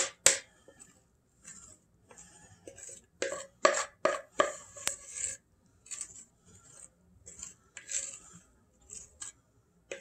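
A utensil scraping the inside of a glass mixing bowl in short, irregular strokes with light clinks, as bread batter is scraped out into a loaf pan. The strokes come thickest about a third of the way in.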